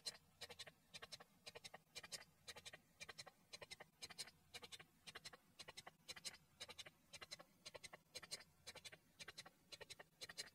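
Faint, steady rhythmic clicking, about three to four clicks a second, many in close pairs, from a small mechanism.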